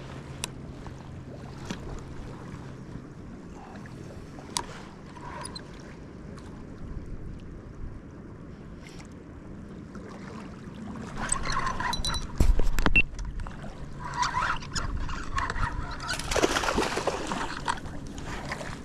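Wind and water ambience at the rocks with small clicks of a spinning reel being handled. From about eleven seconds in come louder rustling and sharp knocks, loudest around twelve seconds, then a noisy stretch of cranking and splashing as a tautog is reeled up to the surface.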